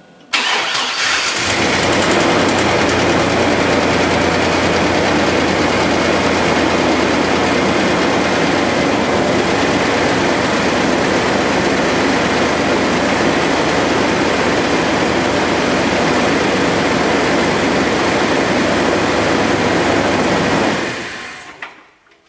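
Chevrolet S10 pickup engine cranking briefly and catching, then idling steadily with a light tick, typical of lifter noise, that an engine flush has made less loud. It is shut off and dies away near the end.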